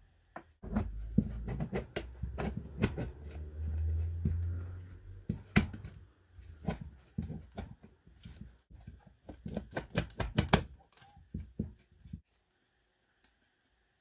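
Thin sheet-metal lamp housing parts being handled and slid together: a run of irregular sharp metallic clicks and taps with some dull knocks, stopping about twelve seconds in.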